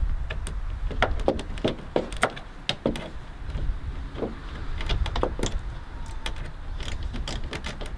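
Irregular clicks and knocks of a ratchet and socket turning two small tail-light mounting nuts off inside a Tesla Model S rear light recess, with rattles of the surrounding trim.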